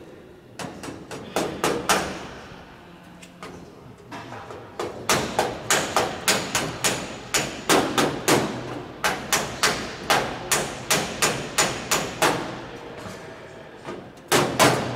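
Small hand hammer striking a piece of aluminium aircraft skin held against a metal bar, with sharp, ringing metallic blows. A quick cluster of blows is followed by a pause, then a long even run of about three blows a second, and two final blows near the end.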